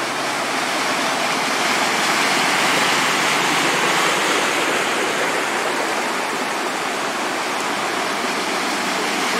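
Steady rush of floodwater running across a road, with the spray of a pickup truck and then a car driving through it.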